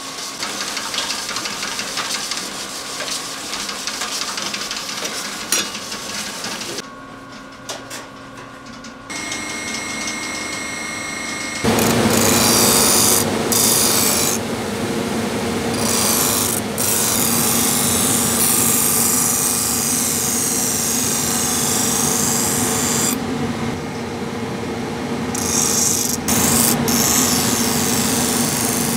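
Steel knife blade being ground against a motor-driven grinding wheel: a harsh rasping hiss over the steady hum of the wheel's motor. It becomes much louder a little under halfway through and drops out briefly several times as the blade is lifted and set back on the wheel.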